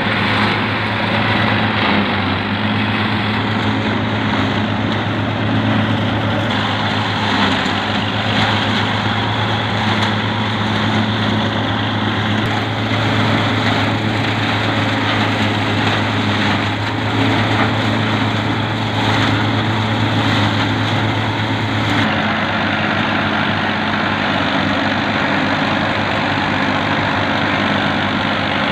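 Tractor diesel engine running steadily under load, driving a tractor-mounted silage harvester that cuts standing fodder and blows the chopped crop up its chute, heard as a dense mechanical din. The engine's low hum shifts about three quarters of the way through.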